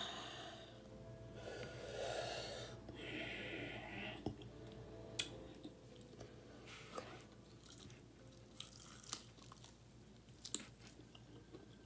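Close-up chewing and biting of crispy fried chicken: wet chewing with short crunches and mouth clicks scattered through, and a bite into a breaded drumstick near the end.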